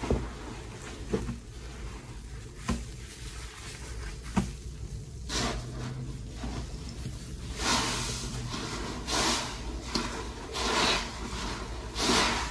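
Sea sponges soaked in thick dish-soap lather squeezed by hand: a series of wet, fizzing squelches, about five of them in the second half, with a few short soft clicks before them.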